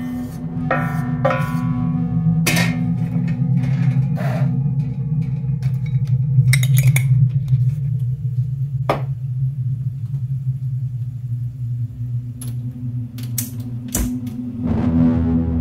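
Soundtrack music: a low held drone with ringing bell-like tones near the start, and a few sharp clicks and knocks over it.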